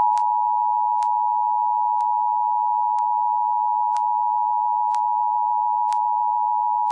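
Emergency Alert System attention signal: a steady two-tone alarm (853 and 960 Hz together), held unbroken at a constant level with a faint click about once a second. It announces an emergency alert, here a tornado warning.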